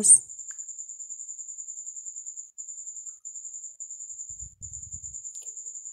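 High, rapidly pulsing insect trill, steady apart from a few brief breaks.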